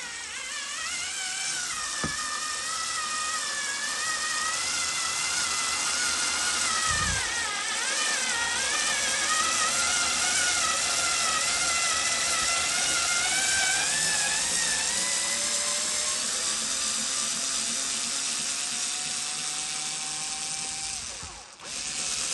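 Makita 3.6 V cordless pencil screwdriver running hard under heavy load as it drives a 150 mm coach screw into wood, a continuous motor-and-gear whine whose pitch wavers up and down. It stops abruptly near the end.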